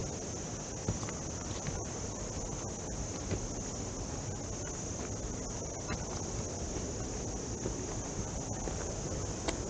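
Insects, crickets or cicadas, keeping up a steady high-pitched drone, with low rumbling noise underneath.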